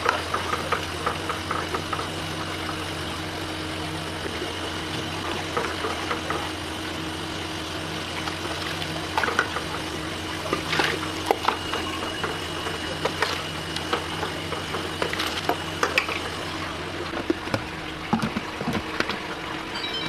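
A metal ladle scooping soup in a large steaming stockpot, with occasional sharp clinks of metal on the pot. Under it runs a steady mechanical hum.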